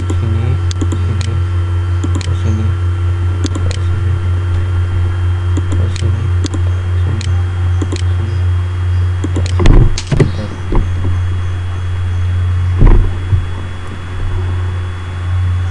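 A steady low electrical hum with faint steady whine tones above it, the kind a computer or microphone line picks up. Over it, computer mouse clicks come at irregular intervals as copies are placed, with two louder dull thumps about ten and thirteen seconds in.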